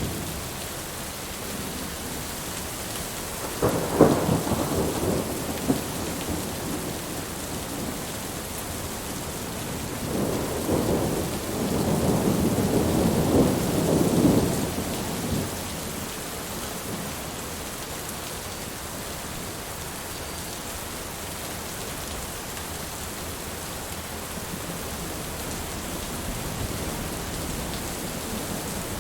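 Heavy, steady rain with thunder: a sharp crack of thunder about four seconds in that rumbles for a couple of seconds, then a longer rolling peal from about ten to fifteen seconds in, fading back to rain alone.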